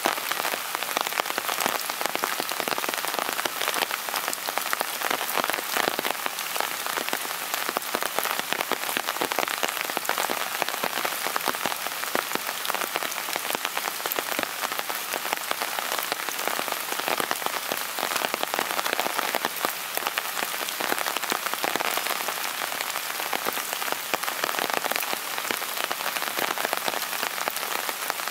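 Steady rain falling, a dense, even patter of many small drop impacts.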